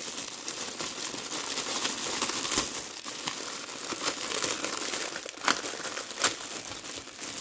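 Clear cellophane bag crinkling continuously as hands handle it and pull it open, with a few sharper, louder crackles a couple of seconds apart.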